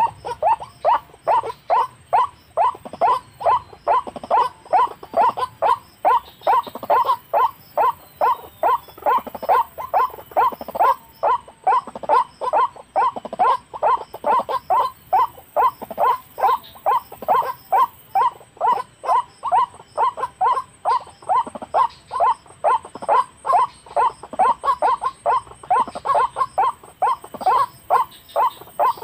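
White-breasted waterhen calls: short, evenly repeated notes about two to three a second, kept up without a break. This is the monotonous call that is played as a lure to draw waterhens to a snare.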